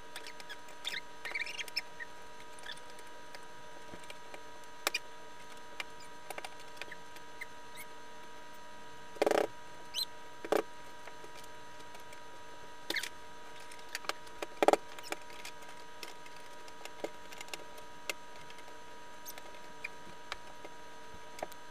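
Scattered clicks, taps and knocks of plastic toy-barn parts being handled, including a few louder knocks, over a steady background hum.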